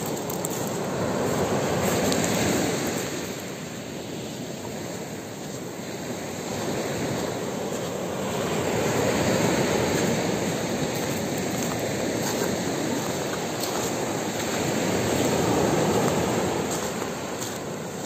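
Small sea waves breaking and washing up over a pebble beach. The surf rises and falls about every six or seven seconds, three swells in all.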